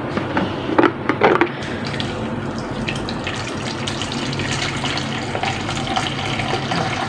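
Hot water pouring from a stainless-steel thermos flask into a steel basin, with a couple of sharp knocks about a second in.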